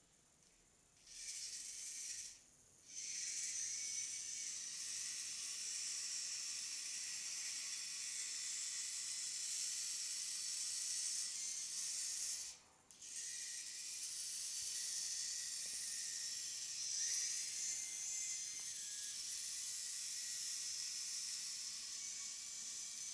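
Small wheeled robot's drive servos whirring as a high hiss while it drives about, cutting out briefly twice when it stops, a couple of seconds in and about halfway through.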